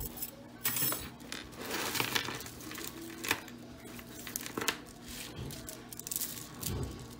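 Costume jewelry pieces clinking and jingling against each other as they are handled: a string of irregular light metallic clinks.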